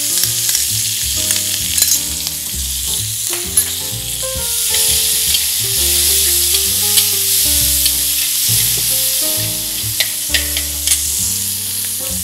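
Onions and freshly added chopped tomatoes sizzling in hot oil in a metal kadai, with a metal spatula stirring and now and then clicking against the pan. Soft background music with sustained notes plays underneath.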